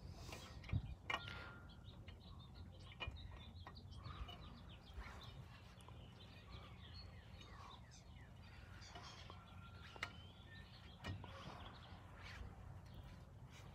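Faint birds chirping, with a few sharp clicks of a lug wrench working on the wheel's lug nuts as they are snugged up.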